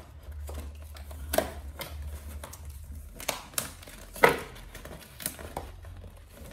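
A cardboard box and its foil inner packet being handled and opened by hand, crinkling, with a string of sharp crackles and clicks. The loudest comes about four seconds in.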